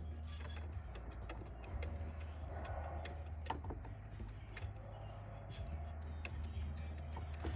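Drive-belt tensioner pulley of a 2009 Honda Accord 2.4 L being turned with the belt off, giving irregular light clicks and ticks, several a second, from a bad bearing: the tensioner is failing and needs replacing.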